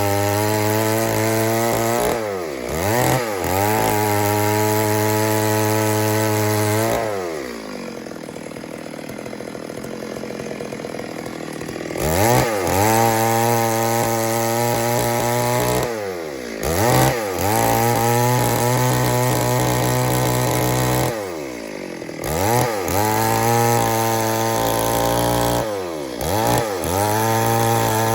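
Stihl MS 382 two-stroke chainsaw running at high revs and dropping back toward idle several times. It idles more quietly for several seconds about a third of the way in, then revs back up.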